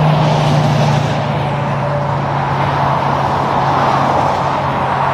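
Highway traffic noise: a semi truck passing and moving away, its low engine drone dropping slightly in pitch over steady tyre-on-road noise.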